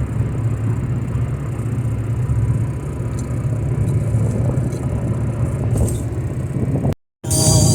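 Steady low rumble of a vehicle being driven, engine and road noise. It cuts off abruptly near the end, and guitar music begins.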